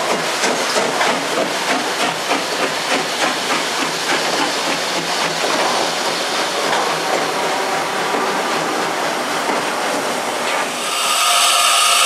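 Passenger coaches rolling slowly past, their wheels clicking over the rail joints at about three a second, followed by the rolling noise of a diesel shunting locomotive. About eleven seconds in, the sound switches abruptly to the steady hiss of a standing steam locomotive.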